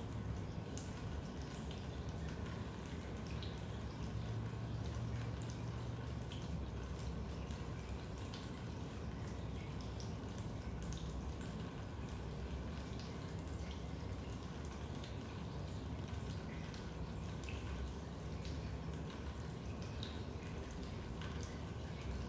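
Rainwater dripping into a basement: many small, irregular drops over a steady low rumble.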